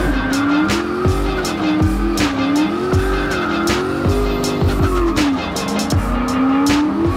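Drift car engine revving up and down again and again with tyres squealing, mixed with background music that has a steady drum beat.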